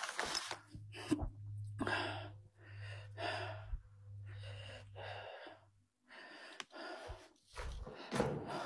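A person breathing audibly in short, noisy breaths about once a second. A faint low hum runs under the first half.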